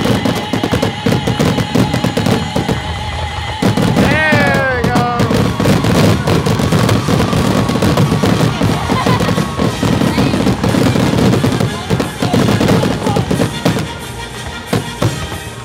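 Aerial firework shells bursting in a rapid, continuous barrage of overlapping bangs, with music playing alongside.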